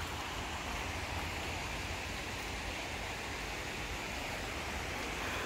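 Steady rushing of Tinker Creek's white-water rapids, an even hiss with a low rumble underneath.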